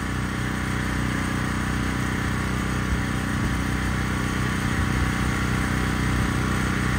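An engine idling steadily under the general hum of city street noise.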